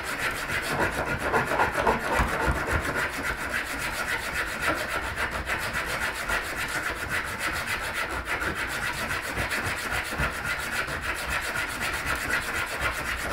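Hacksaw cutting through a metal spindle in continuous back-and-forth strokes.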